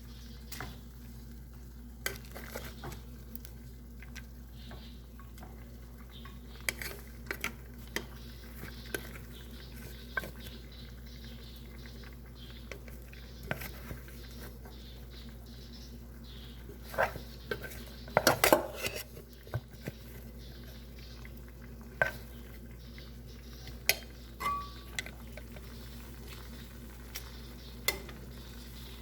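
A cooking utensil stirring rice and vegetables in a pot, with irregular knocks and scrapes against the pot and a louder burst of clatter about two-thirds of the way through, over a steady low hum.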